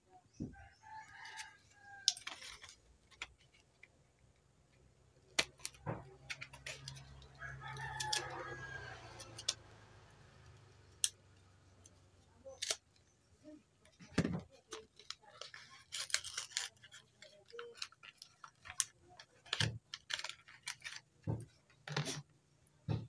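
Scattered clicks and knocks of small items being picked up and set down on a wooden workbench. Two long drawn-out animal calls sound in the background, about a second in and again around eight seconds in.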